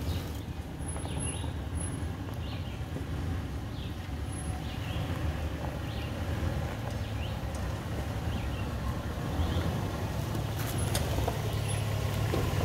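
Toyota 4Runner's 4.0-litre V6 running at a low crawl as the truck picks its way down a rocky trail, a steady low rumble that gets louder as it comes close near the end. A couple of sharp knocks near the end, tyres or underbody against rock.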